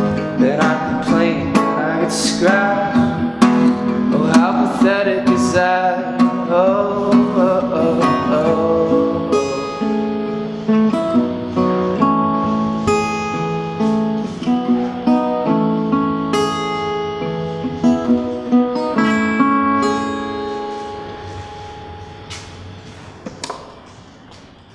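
Small-bodied steel-string acoustic guitar strummed through the closing bars of a song, with repeated sharp strum attacks; the sound fades away over the last few seconds.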